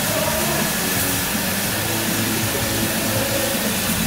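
Caledonian Railway Class 812 0-6-0 steam locomotive reversing slowly, with a steady hiss of escaping steam, while a live band plays in the background.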